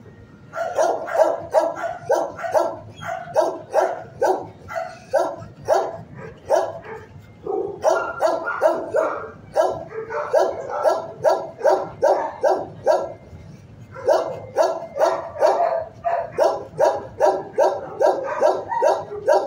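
A dog in a shelter kennel barking fast and repeatedly, about three barks a second, with two short breaks.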